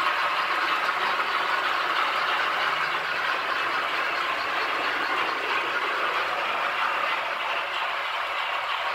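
Model train running along the track: a steady rolling rush of wheels on the rails.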